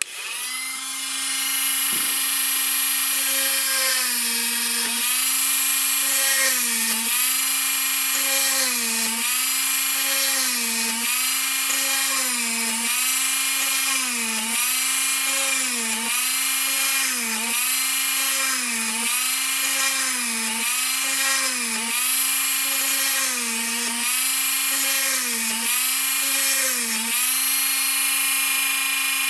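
Minicraft mini hand drill with a 1 mm tungsten carbide bit, switched on and running at a steady whine. Its pitch sags briefly and recovers about once a second as the bit is pushed through each hole in an etched printed circuit board.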